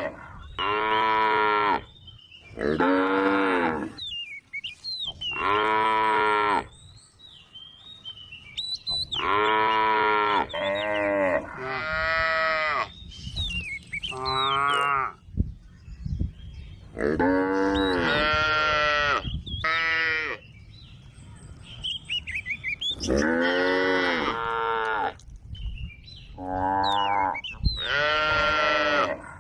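A cow mooing over and over: about a dozen loud, drawn-out calls of a second or two each, with short pauses between them. Faint bird chirps can be heard in the gaps.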